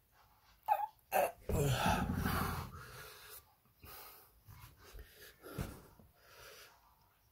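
A man breathing hard under strain during a plank. About a second and a half in comes a loud strained groan on the out-breath, after two short sharp breaths; softer panting breaths follow.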